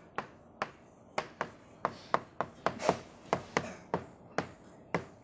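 Chalk writing on a blackboard: an irregular run of sharp taps, about three a second, with short scratches between them as each stroke is drawn.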